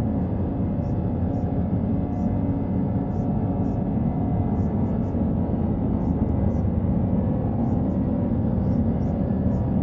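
Red (Brownian) noise: a steady, deep rushing hiss with most of its weight in the low end, unchanging throughout.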